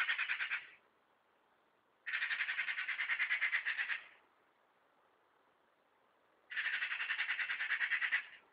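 Eurasian magpie giving its harsh rattling chatter in three bursts of rapid chacks about two seconds each, the first ending under a second in. It is the alarm rattle magpies use to mob a cat.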